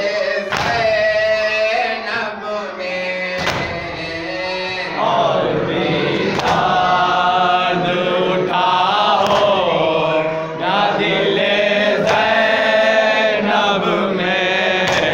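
A group of men chanting an Urdu noha (mourning lament) together, with a sharp hand strike of chest-beating (matam) about every three seconds keeping the beat.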